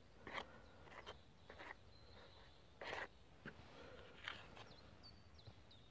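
Faint, irregular rustling and scraping strokes of a hand mixing bread dough ingredients (flour and buttermilk) in a bowl, roughly one stroke every half second to second.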